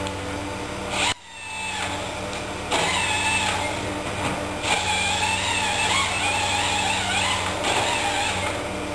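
Forestry harvester's diesel engine running steadily under a wavering hydraulic whine that rises and falls as the boom and harvester head work the logs. The sound drops away abruptly for a moment about a second in, then comes back louder.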